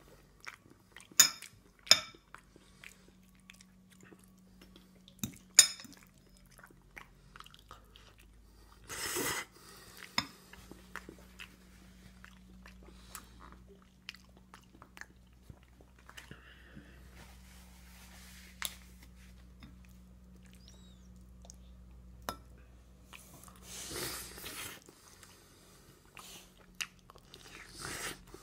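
A toddler eating pasta with her fingers: chewing and wet mouth clicks, with a few sharp loud clicks in the first six seconds. Two short hissy bursts come about nine seconds in and again about twenty-four seconds in.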